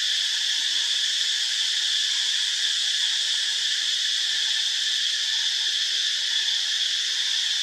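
Dense chorus of insects: a steady, high-pitched drone that runs on without a break.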